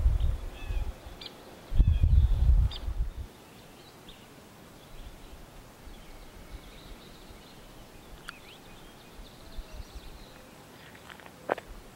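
Wind buffeting the microphone in loud gusts for about the first three seconds, then a quieter stretch with faint, scattered bird chirps.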